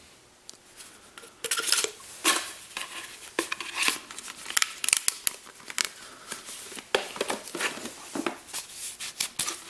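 Irregular crinkling, rustling and light knocks as the demolition hammer's steel chisel bits and their packaging are handled.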